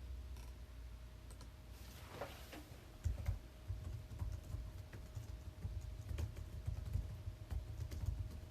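Quick light clicks and taps with soft thumps on a desk, the thumps starting about three seconds in.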